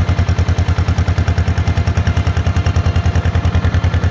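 1948 John Deere Model M's two-cylinder engine running with a rapid, even exhaust beat. The owner hears a definite exhaust leak blowing out both sides.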